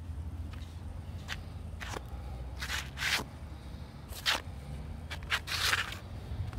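Worn leather Sperry Top-Sider boat shoes scuffing and scraping on asphalt in uneven footsteps, about eight short scrapes with gaps of half a second to a second, the longest and loudest about three seconds in and near the end.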